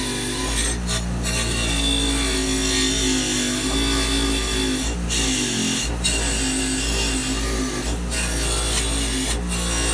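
Delta bench grinder running with a wire wheel scrubbing old paint off a steel lamp part: a steady motor hum under a harsh hissing scratch, which breaks off briefly several times.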